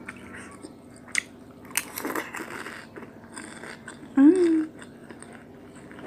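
A person biting and chewing fried pempek close to the microphone, with wet crackly chewing about two seconds in. About four seconds in, with the mouth full, comes a short hummed "mmm" of enjoyment, the loudest sound.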